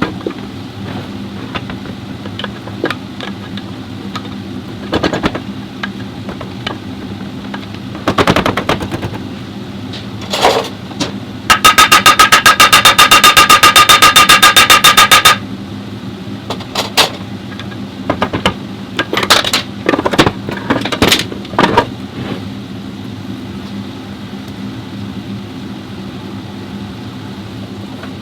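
Mechanic's tools at work on a car transmission: scattered metallic clicks and clanks over a steady low hum. About twelve seconds in, a pneumatic wrench gives a loud, rapid rattling burst that lasts about four seconds.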